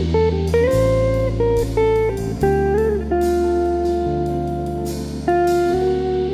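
Background music: a melody of held notes, some bending in pitch, over steady low bass notes.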